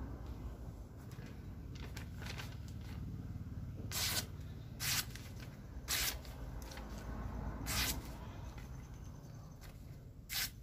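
Sword blade forged from a motorcycle brake disc slicing through a hand-held sheet of paper: five short, crisp rasps a second or two apart, with fainter ones before them. This is a paper-cutting test of the edge's sharpness.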